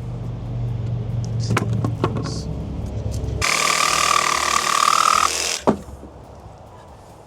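Power saw cutting through a wooden decking board: after a low hum, the saw runs loud with a steady whine for about two seconds, then cuts off suddenly, followed by a single sharp knock.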